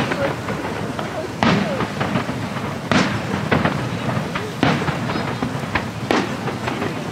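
Aerial fireworks shells bursting: four loud booms about a second and a half apart, with smaller pops between them.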